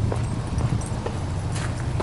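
Subaru Legacy B4 2.0GT's turbocharged 2.0-litre flat-four engine idling steadily, with a few footsteps on gravel.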